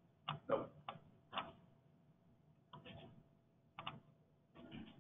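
Faint, irregularly spaced clicks and taps of a computer keyboard and mouse, about eight or ten in all, over a faint steady hum.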